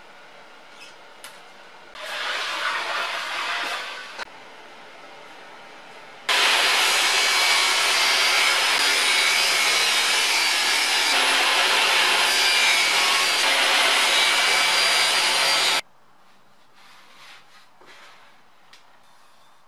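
Table saw running with a steady loud whine for about ten seconds, starting and stopping abruptly, as a white board is fed toward its blade. A shorter rasping noise comes a couple of seconds in.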